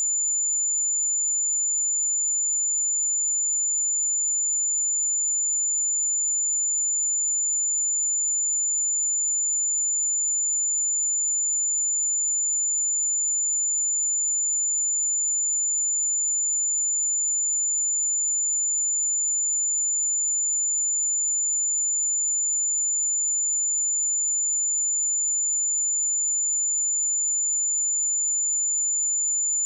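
Steady, high-pitched pure sine-wave test tone at 7048 Hz, held unbroken at a constant level.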